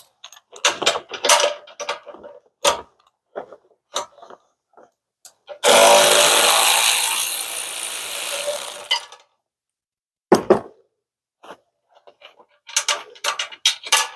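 Cordless power ratchet running for about three seconds as it spins a nut off one of the winch mounting bolts, starting abruptly and tapering off. Before and after it come short clinks and knocks of metal parts and tools being handled.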